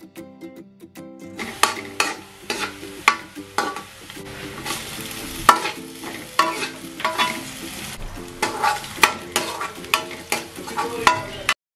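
Metal spoon stirring and scraping chopped garlic and sliced onion in a metal wok as they fry: repeated sharp clinks and scrapes of metal on metal over the sizzle of the oil. It grows louder about a second and a half in and stops abruptly near the end.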